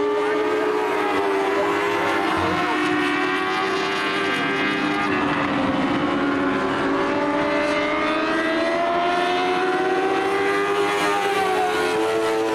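Several race car engines running at speed on an oval track, their pitch rising and falling as the cars go round.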